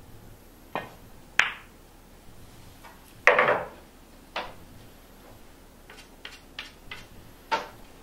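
A pool shot: a light click of the cue tip on the cue ball, a sharp click of the cue ball striking an object ball, then the loudest sound, a longer clattering knock as the object ball drops into a pocket. After it come another click and a run of lighter clicks.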